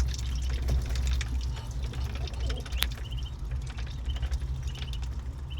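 Ducks dabbling wet food with their bills, a run of wet clicks and splashes, while ducklings give short high peeps in small groups throughout.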